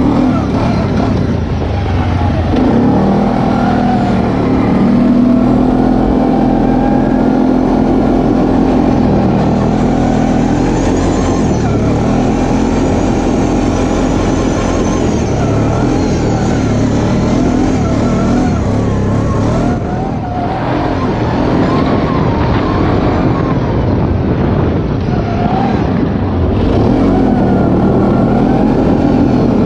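ATV engine running under throttle as the quad is ridden across ice, its pitch rising and falling with the throttle and easing off briefly about two-thirds of the way through.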